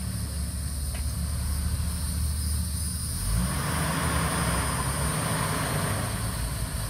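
A 1997 Jeep Wrangler TJ's 4.0-litre inline-six engine running at low revs as the Jeep crawls over large rocks in low gear, picking up a little about three seconds in.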